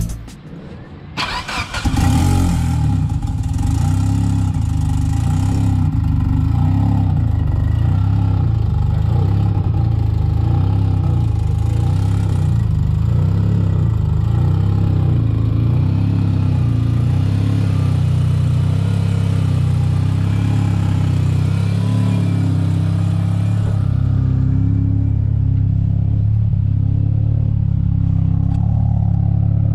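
Big-turbo Mitsubishi Lancer Evo's 4G63 turbocharged four-cylinder being cranked briefly and catching about two seconds in. It then idles through a side-exit exhaust with the exhaust valve closed, on its first start after the big-turbo build.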